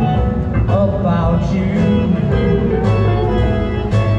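Live band playing a song, guitar to the fore, steady and loud.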